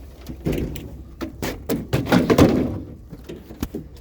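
Several knocks and clunks over a low steady rumble inside a moving vehicle's cabin.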